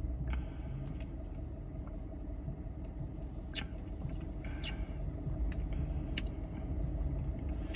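Low steady rumble inside a car cabin, with a few short clicks and mouth sounds as soda is sipped again, the two loudest about three and a half and just under five seconds in.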